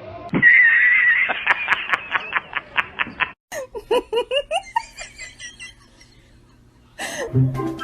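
High-pitched laughter: a long squeal that breaks into quick repeated giggles, then a second run of shorter rising laughs that fades out about five and a half seconds in.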